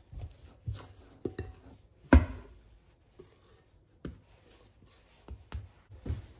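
Risen bread dough being tipped out of a stainless-steel bowl onto a countertop by hand: a string of soft thumps and knocks, with one sharp, loud knock about two seconds in.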